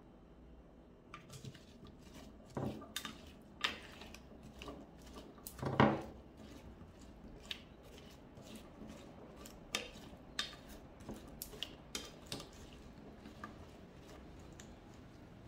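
Plastic slotted spatula tossing diced raw potatoes in a ceramic baking dish: irregular scrapes and clacks of spatula and potato cubes against the dish. It starts about a second in and is loudest around six seconds in.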